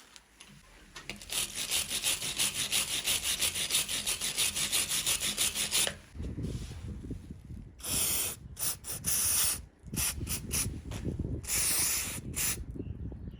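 Hand scrubbing of rusty steel pliers with an abrasive: quick, even back-and-forth scraping strokes for several seconds, then slower, uneven strokes with short pauses.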